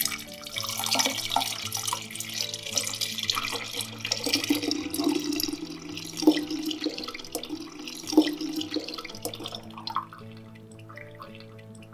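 Thin yogurt drink poured in a steady stream from a bowl into a glass pitcher of chopped cucumber and mint, a liquid splashing and gurgling sound. It starts suddenly and tapers off to a trickle about ten seconds in.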